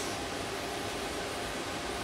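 A steady, even whoosh of running air-moving machinery, like a fan or extractor.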